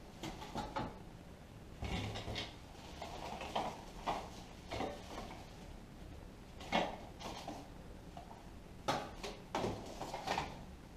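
Loose tools and parts being picked up and handled: irregular knocks, clicks and rustles, with sharper knocks about two, seven and nine seconds in.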